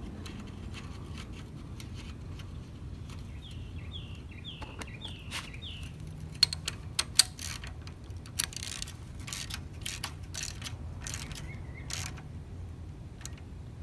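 Metal clicks and clinks of a socket wrench turning the oil drain plug back into a McLane lawn edger's engine, tightening it after the oil has been drained. A few sharp knocks stand out about six to seven seconds in.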